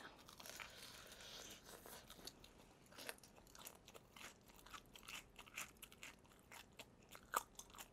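Faint, crisp crunching of BBQ Golden Olive fried chicken's batter being chewed up close: a string of quick crackly crunches, one louder crunch near the end.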